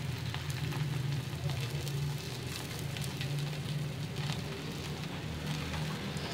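Methi paratha frying on a hot tawa, a steady sizzle of oil with many small crackling pops.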